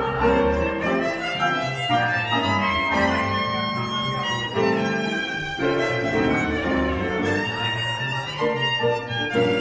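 Live violin playing the melody, accompanied by piano and a plucked double bass.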